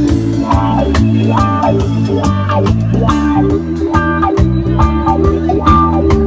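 Band playing a reggae-style rock song: guitar chords over a bass line and drum kit with a steady beat.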